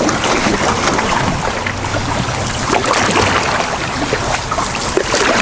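Fast river current rushing and splashing around a canoe's hull as it runs through moving water, a steady noise with wind buffeting the microphone.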